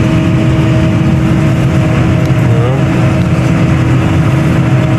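Tractor engine running steadily under load, heard from inside the cab, with a constant steady whine above the engine's drone.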